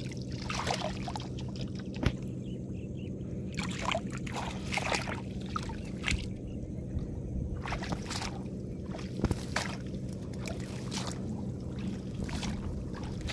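Water splashing and dripping in short, irregular bursts as a monofilament current net holding caught fish is lifted through shallow, grassy water, over a steady low hum.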